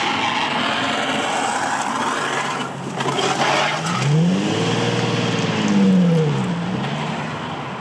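Nissan 350Z's V6 engine driving past, rising and then falling in pitch as it goes by. A steady rough scraping runs through it: the car's damaged plastic under tray dragging on the road.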